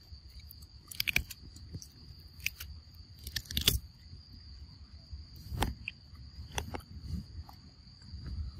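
A steady, high-pitched drone of crickets, with a handful of sharp, crisp crunches from monkeys biting and chewing green fruit. The loudest crunches come about one second in and again about three and a half seconds in.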